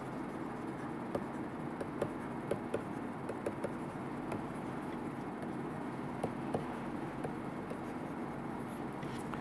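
Stylus tapping and scratching on a pen tablet during handwriting: faint, irregular soft ticks over a steady background hiss.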